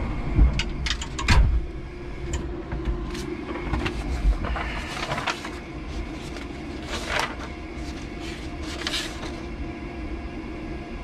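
Sheets of paper rustling and being shuffled several times over a steady low hum in the cab of an electric forklift, with a couple of heavy knocks in the first second or so.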